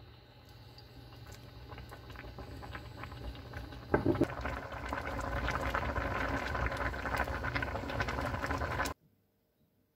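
Pot of kimchi sujebi (kimchi hand-torn dough soup) bubbling at the boil on an induction hob, the bubbling growing louder, with a brief knock about four seconds in. The sound cuts off suddenly near the end.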